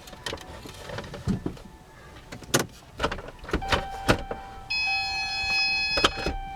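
Plastic dash trim clips clicking and snapping as panels are pried loose. About halfway through, a steady high electronic tone with overtones starts and carries on under the clicks.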